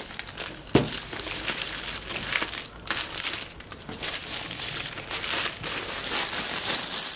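Clear plastic shrink wrap being peeled off a laptop box and crumpled: a continuous run of crinkling and crackling, with one sharper snap about a second in.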